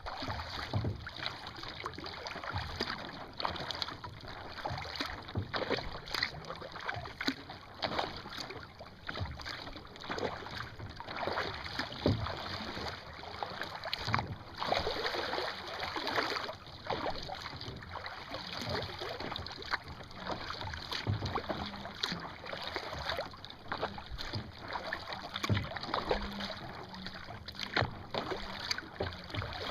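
Water splashing and lapping against a sailing kayak's hull as it moves along, in short irregular splashes over a steady wash.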